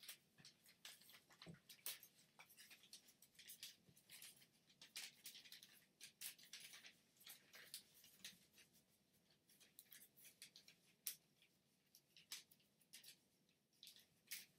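Sheet of origami paper being folded and creased by hand: faint, irregular crinkles and crisp little crackles of paper, scattered throughout.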